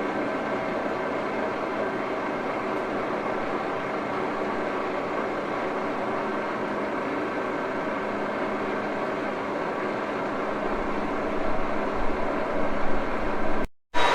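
1941 Axelson gear head engine lathe running steadily, its gearbox giving a whine of several steady tones. About eleven seconds in it turns louder and uneven for a couple of seconds, then cuts off abruptly.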